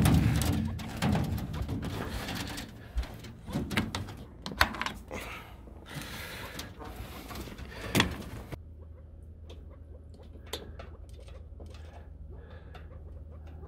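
Knocks and clatter of a wire-mesh cage door and its metal sliding bolt latch being handled. After about eight and a half seconds it turns much quieter, with light taps of a screwdriver chipping ice off plastic watering nipples.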